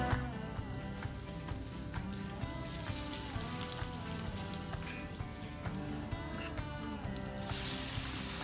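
Hot oil in an electric deep fryer sizzling and crackling around a panko-breaded tempura roll in a wire basket. The sizzle grows louder and brighter about seven seconds in, as the roll goes down into the oil.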